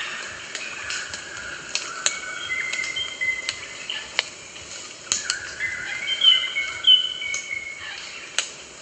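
Rosellas calling in clear piping whistles: a series of held, level notes, the two loudest a little past the middle, with scattered sharp clicks among them.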